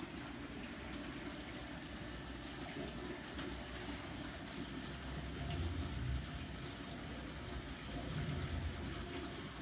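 Aquarium filter running: a steady flow of water into the tank, with a low rumble that swells briefly about halfway through and again near the end.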